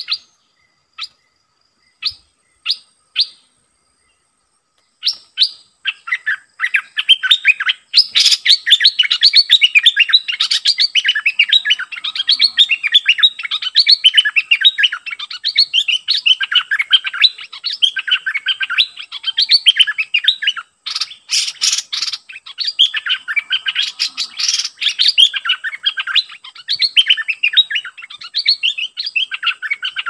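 Bulbuls singing at a decoy cage: a few single sharp notes at first, then from about five seconds on a continuous, rapid chattering warble. A few sharp clicks cut through it, once about eight seconds in and twice near the middle.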